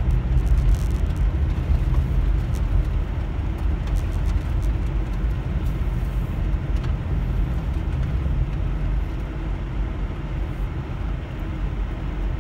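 Steady road noise of a moving car heard from inside the cabin: a low rumble of engine and tyres on the road, with a few light ticks.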